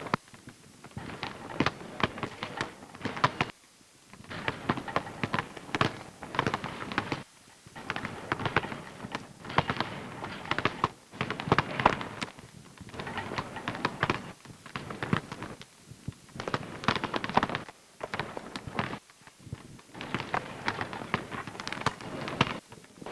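Several basketballs bouncing on a hardwood gym floor during dribbling drills: a rapid, irregular patter of thuds, broken by a few short gaps.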